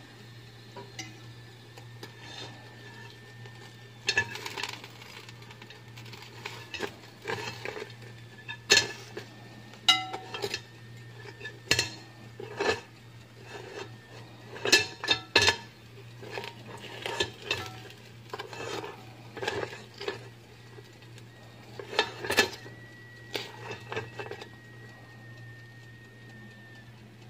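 A metal fork scraping and clinking against crackled roast pork belly and the wire rack of a turbo broiler, in irregular clicks and scrapes, some sharper than others. A steady low hum runs underneath.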